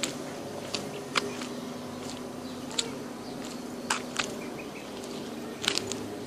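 Footsteps of platform wedge-heeled ankle boots, first on asphalt, then onto gravel: sharp, uneven heel strikes about once a second, with a quick cluster near the end. A steady low hum runs underneath.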